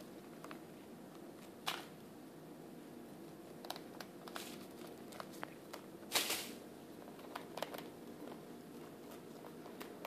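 Hamster gnawing and scrabbling at a hard crust of bread: scattered faint crackles and scratches, with a sharp click a couple of seconds in and a louder crunching crackle about six seconds in, over a low steady hum.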